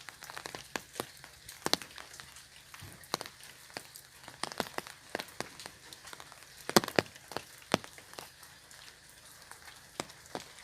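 Raindrops falling on an umbrella: sparse, irregular taps on the canopy over a faint hiss, a few louder drops about seven seconds in.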